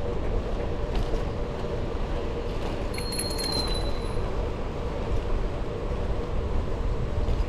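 Steady low rumble of a bicycle ride: wind on the microphone and tyres rolling on the trail, with a few light clicks. About three seconds in, a brief high-pitched squeal lasts about a second.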